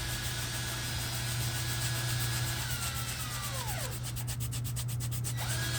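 Light hand filing or sanding of a die-cast toy car part. The rubbing is steady, with a brief falling squeak about midway and quicker scratching strokes near the end.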